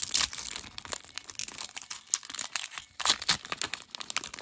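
Foil booster pack crinkling as it is handled and torn open: a run of irregular crackles, with louder bursts about three seconds in.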